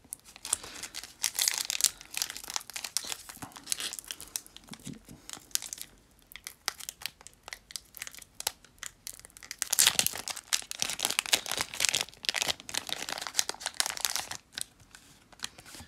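Foil wrapper of a Pokémon trading-card booster pack being crinkled and torn open by hand. The crackling comes in two loud spells, one about a second in and one about ten seconds in, with quieter handling between.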